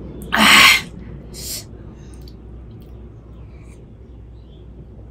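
A woman's sharp, loud breath, about half a second long, then a shorter, fainter one about a second later.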